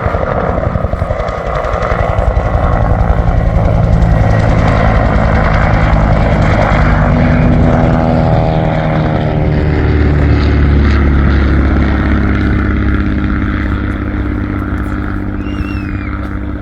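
Bell UH-1H Huey helicopter flying past, its engine and rotor loud. The pitch drops as it passes about eight seconds in, and the sound fades toward the end.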